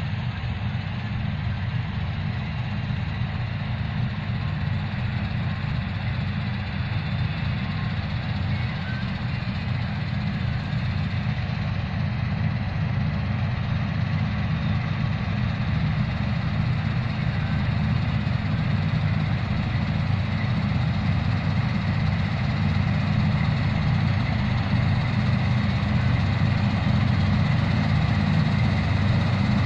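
Diesel engine and machinery of an 8070 combine harvester running steadily while harvesting wheat, a continuous drone that grows gradually louder.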